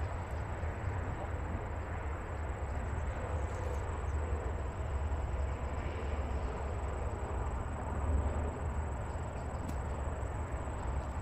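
Steady outdoor rumble with an even hiss, heaviest at the low end and fluttering in strength.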